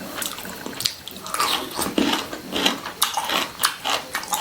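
Close-up wet chewing and lip-smacking of a mouthful of chicken in gravy, an irregular run of sharp smacks and clicks several times a second.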